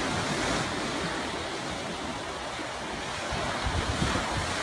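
Ocean surf breaking and washing around a driftwood log at the shoreline, a steady rush with a louder surge near the end, as a wave splashes over the log. Wind rumbles on the microphone.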